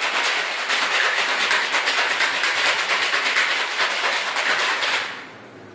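Ice rattling hard in a stainless-steel cocktail shaker during a vigorous shake, in a rapid, even clatter that stops about five seconds in.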